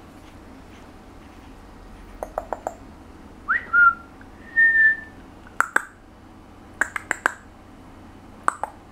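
A person whistling two short notes, the first rising then held, the second a single steady note, with groups of sharp clicks before and after.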